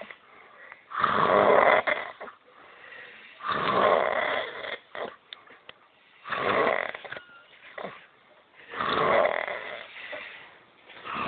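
A person snoring in sleep: four long snores, evenly spaced about two and a half seconds apart.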